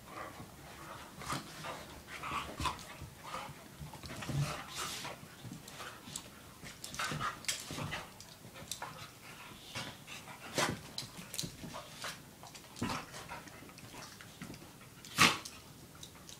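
Two dogs play-fighting: a run of short, scattered dog vocalisations and scuffling sounds, with one loud sharp sound near the end.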